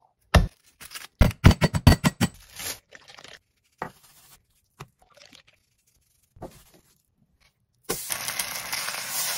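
A quick string of sharp taps and slaps, then a few faint handling sounds. Near the end a seasoned chicken breast goes into a hot oiled pan and starts sizzling at once, a steady hiss.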